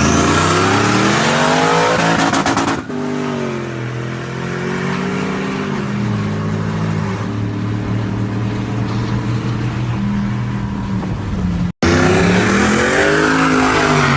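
Pickup truck engine revving under acceleration, its pitch climbing and falling and stepping through gear changes. The sound breaks off abruptly twice.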